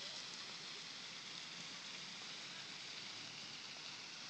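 Water from a fountain's jets splashing into its basin: a faint, steady hiss.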